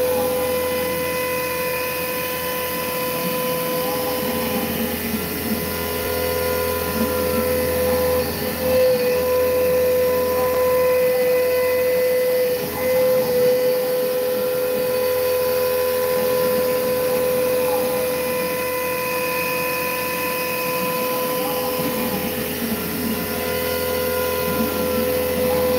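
Langmuir Systems MR-1 CNC mill cutting mild steel with a carbide end mill spinning at about 5,000 RPM: a loud, steady spindle whine over a constant hiss from the mist coolant system. The cutting noise beneath swells and fades every few seconds as the tool moves along its path.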